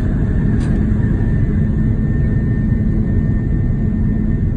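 Airbus A330-200 jet engines and rolling noise heard from inside the cabin: a steady loud low rumble with a faint steady whine above it, as the airliner rolls along the runway.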